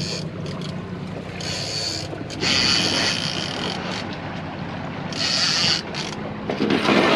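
Trolling reels' clickers buzzing in several spells of about a second as line is pulled off, the sign of striped bass striking the trolled lines. Under it runs the low, steady hum of the boat's motor at trolling speed.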